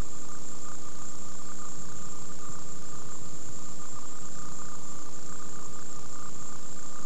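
Steady, loud hiss of a blank stretch of old VHS videotape, with a high whine and a few lower steady hum tones running through it.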